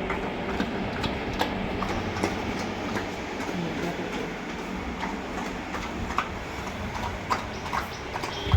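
A Labrador eating soft, wet food fast: irregular smacking and chomping clicks as it gulps, over a steady low hum.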